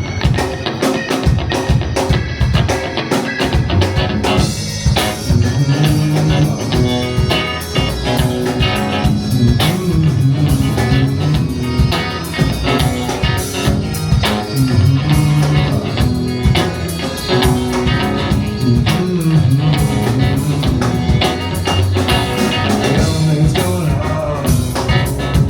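Live rock band playing a song, with drums, a moving bass line and guitar.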